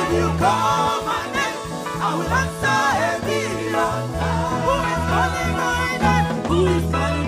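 Live gospel music from a church band playing an upbeat song, with a prominent repeating bass line under a wavering lead melody.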